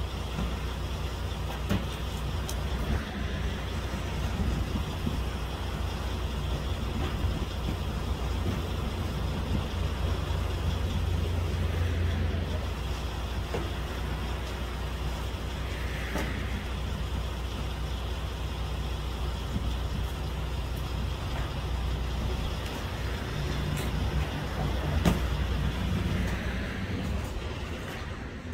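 A truck engine idling with a steady low rumble, with a few sharp knocks of cardboard boxes being handled, the loudest near the end.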